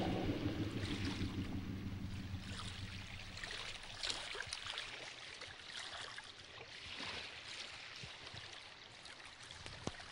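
Song fading out in the first couple of seconds, then faint lapping and trickling of calm lake water, with small irregular splashes.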